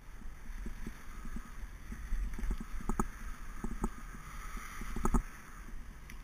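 Mountain bike riding downhill on a wet road: tyres hiss on the wet surface, wind rumbles on the microphone, and the bike rattles over bumps. Two sharper knocks come about three and five seconds in.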